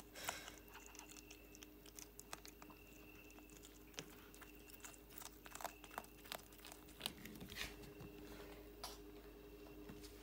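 A cat chewing and crunching on a boiled snake, faint irregular crunches and clicks of its bites.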